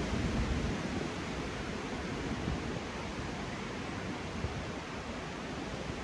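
Wind rushing steadily through the crowns of tall conifers, with a gusty low rumble in the first second that then eases off.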